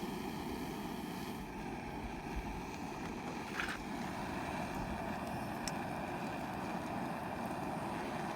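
Portable gas camping stove burning steadily under a pot, a constant hiss while water heats for ramen.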